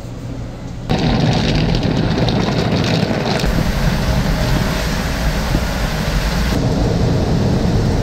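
Automatic car wash heard from inside the car: water jets and spray beat on the windshield and body in a loud, steady rush over a low rumble. The spray starts suddenly about a second in.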